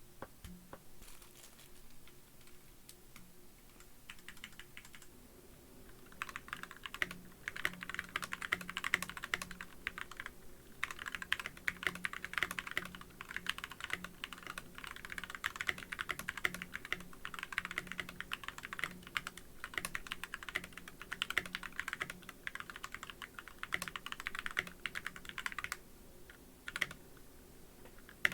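Fast typing on a custom tenkeyless mechanical keyboard with lubed Gateron Yellow linear switches and PBT doubleshot keycaps: a dense run of clicky-clacky keystrokes. It starts with a few light taps, settles into continuous typing after about six seconds with a brief pause partway through, and thins to a few keystrokes near the end.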